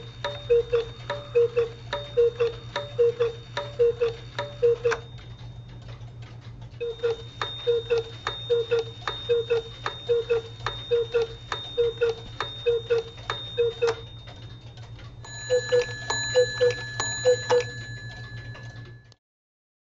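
Wooden train-shaped clocks ticking in an even rhythm, about two beats a second, over a faint steady high tone. The ticking breaks off for a moment near the middle, resumes, changes character later on, and stops shortly before the end.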